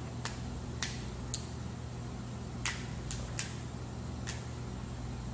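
Cooked lobster shell being cracked and snapped apart by hand: about seven sharp cracks at irregular intervals, over a steady low hum.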